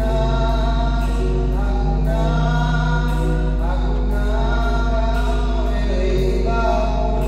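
Congregation or choir singing a gospel hymn with steady accompaniment, voices moving between long held notes.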